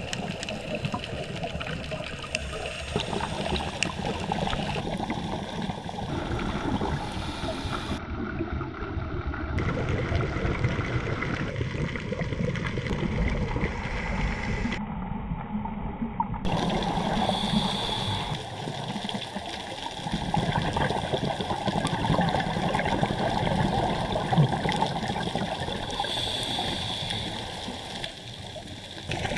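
Underwater water noise picked up by a diver's camera in its housing: a steady gurgling rush with fine crackle throughout.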